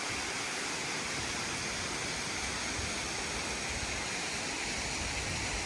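Creek water rushing over rocks below, a steady, even hiss.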